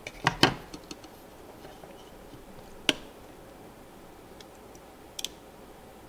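Small screwdriver prying at the press-fit quad-port SFF-8643 SAS connector on a controller card, working its pins loose from the board: a quick cluster of sharp clicks at the start, one sharp click about three seconds in, and two quick clicks near the end.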